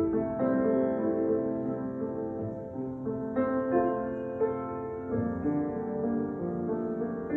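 Grand piano playing slow, sustained chords, with new chords struck about half a second, three and a half and five seconds in: the piano introduction to a solo sacred song.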